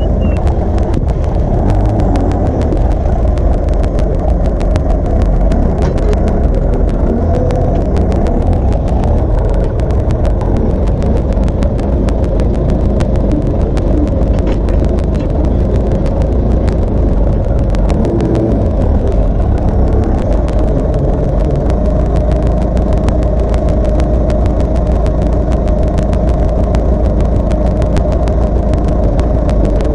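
Diesel engine of a JCB Loadall telehandler running steadily and close by while it handles logs.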